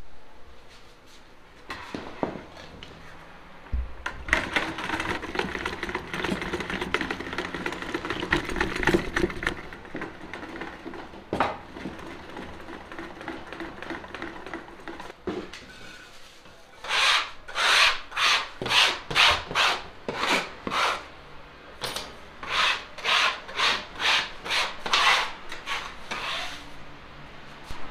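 A metal blade scraping across a floury bread worktable in quick rasping strokes, about two a second, in two runs during the second half. Before that, a longer spell of scraping and churning noise as a metal rod is worked round in a plastic bucket.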